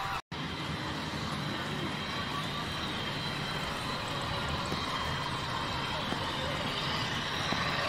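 Model train running along the layout track, a steady rumbling whir of wheels and motor. The sound cuts out for an instant just after the start, then carries on.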